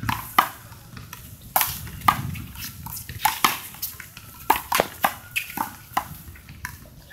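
A small rubber handball is slapped by gloved hands, strikes the wall and bounces on the court during a rally. It makes a quick, irregular series of about a dozen sharp smacks and pops.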